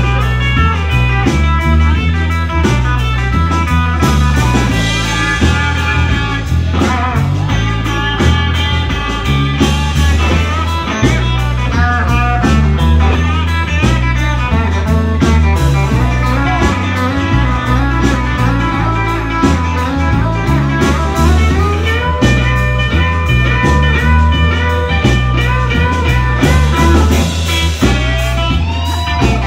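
Live blues band playing an instrumental stretch: electric guitar lead with bent notes over a steady bass line and drums.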